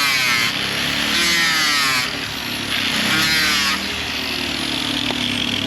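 Power grinder cutting into a fiberglass keel, its pitch sagging three times as it is pressed into the laminate and bites in. It is grinding through delaminated fiberglass to reach the sound laminate beneath.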